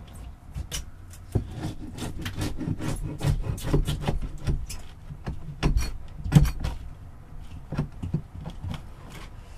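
Rotted, water-soaked wood and debris being pulled and scraped out of a motorhome's cab-over bunk, as irregular knocks, scrapes and clicks. The loudest knock comes a little past six seconds in.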